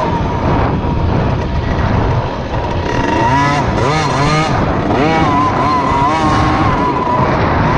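Motocross bike engine ridden along a dirt track, revving up and down several times in quick succession about three seconds in as the throttle is worked, then holding a steadier pitch.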